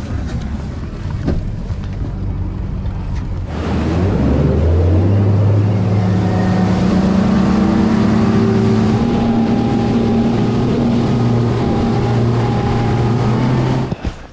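Bass boat's outboard motor running low, then throttled up about three and a half seconds in, its pitch rising as it comes up to speed, then running steadily at high speed with wind rushing over the microphone.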